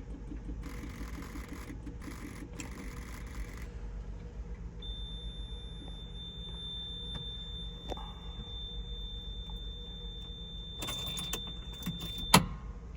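Lotus starter cranking for about three and a half seconds, with a fast regular pulse, and the engine does not catch: a no-start. A steady high-pitched tone follows, then keys jangle and end in a sharp click near the end.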